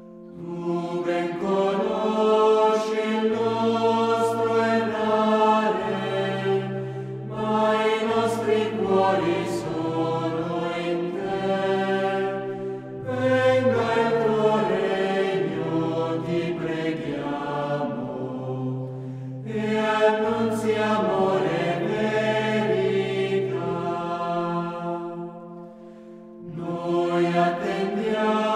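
Background music: a choir chanting slowly over sustained low notes, in phrases of about six seconds with short breaks between them.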